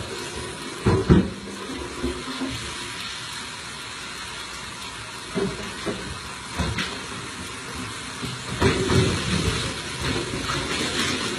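Knocks and clatters of items being moved about in kitchen cabinets, over a steady hiss. There are two knocks about a second in, single ones around the middle, and a busier cluster a couple of seconds before the end.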